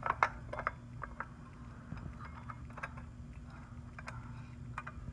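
Light metallic clicks and rattles of a steel C-clamp being turned by hand to tighten it against an engine's water pump pulley. There is a quick cluster of clicks in the first second, then scattered single clicks.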